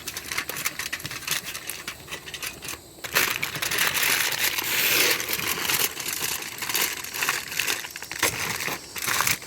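Heavy-duty aluminium foil being folded and crimped by hand, crinkling and crackling, loudest from about three seconds in.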